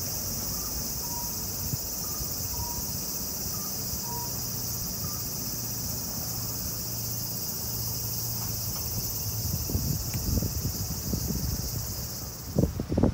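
Steady, high-pitched chorus of insects with a low hum underneath. In the last few seconds irregular low rumbling builds up on the microphone.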